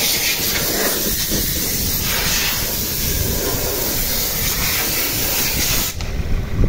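A steady, loud hiss, like rushing air or escaping gas, that cuts off suddenly near the end.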